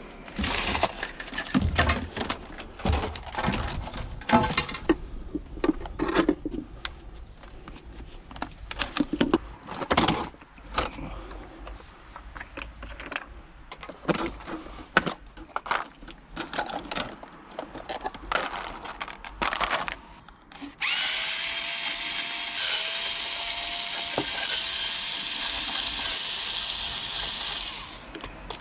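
Repeated irregular knocks, clanks and scrapes of scrap metal being worked by hand. About 21 s in, a power tool starts and runs steadily at one pitch for about seven seconds, then stops.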